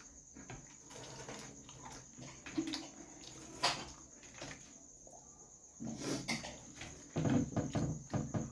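Close-up eating sounds: chewing and mouth noises with scattered small clicks, growing denser and louder about six seconds in.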